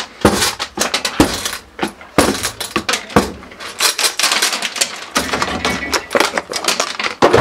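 Lawn fertilizer spreader with its wheel turned by hand, the mechanism rattling and clicking rapidly and unevenly, like coins paying out of a slot machine.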